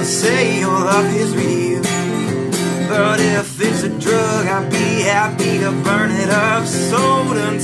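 A man singing to his own strummed acoustic guitar, with a brief break in the singing about three and a half seconds in.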